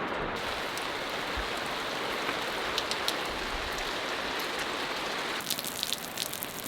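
Steady rain falling, a constant hiss; about five seconds in it changes suddenly to closer rain with many sharp drops ticking.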